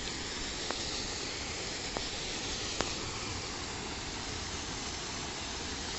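Fountain jets spraying and splashing into a pool: a steady rushing hiss of water, with a few faint ticks in the first half.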